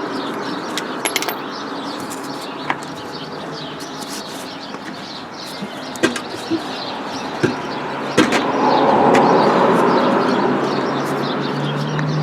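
Birds chirping over steady outdoor background noise, with a few sharp clicks and knocks. A low drone and louder rushing noise swell from about two-thirds of the way in.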